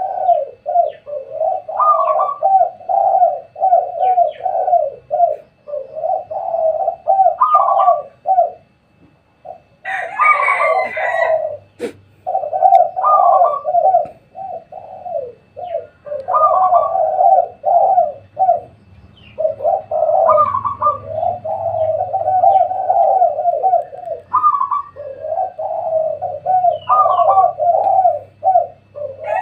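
Several spotted doves cooing on and off, their repeated phrases overlapping. About ten seconds in there is a brief, harsher call reaching higher, followed by a single sharp click.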